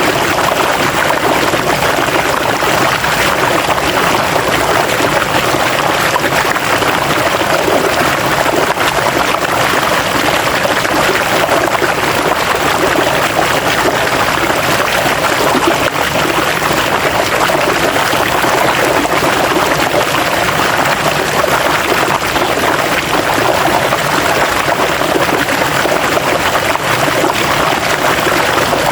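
River water flowing over stones, a steady rushing and babbling that doesn't change.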